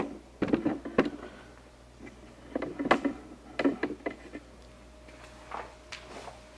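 Irregular knocks, clicks and clattering handling noises for about the first four seconds, then quieter, with a faint steady hum coming in near the end.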